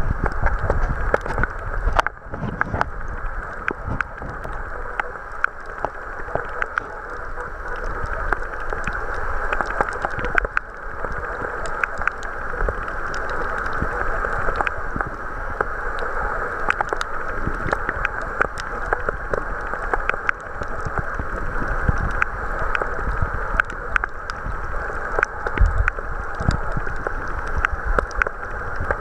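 Underwater ambience heard through a submerged camera housing: a steady rushing hiss with many scattered sharp clicks, and a few low thumps of water moving against the housing, mostly near the end.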